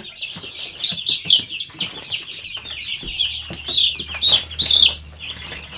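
A brooder full of six-day-old Cornish Rock broiler chicks peeping continuously, a dense chorus of short high peeps, with scattered light knocks.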